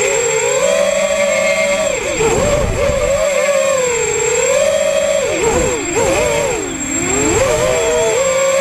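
An FPV racing quadcopter's brushless motors and propellers whine, heard from the onboard camera. Several close tones rise and fall together with the throttle. The pitch drops and the tones split apart about two seconds in, and again for a longer dip between five and seven seconds, with rushing air during the dips. A faint steady high whine sits above it all.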